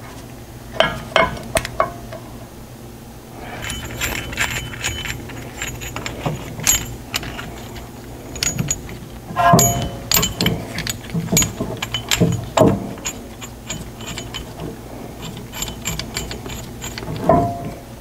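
Small metal brake parts clinking and rattling as pad springs and a caliper tool are handled at a car's rear disc brake: a run of sharp, irregular clicks over a steady low hum.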